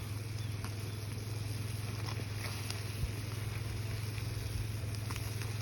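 A steady low hum, like an engine running, with a few faint clicks over it.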